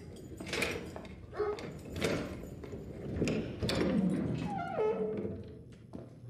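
A dog giving several short barks and whines, one whine falling in pitch near the end.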